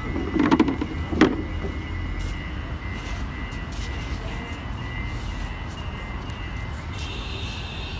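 Two wooden knocks, about three-quarters of a second apart, as the wooden parts of a folding table are handled and folded, followed by a steady low background rumble.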